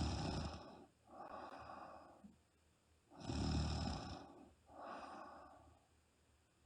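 A woman snoring in her sleep: two slow breaths, each a loud, rumbling snore of about a second, followed shortly by a softer breath out.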